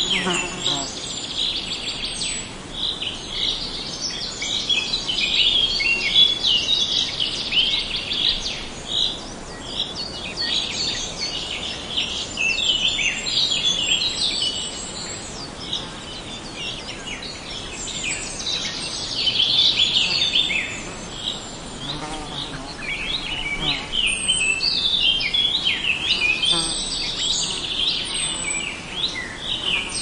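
Chorus of several songbirds: many quick chirps and short song phrases overlapping without a break.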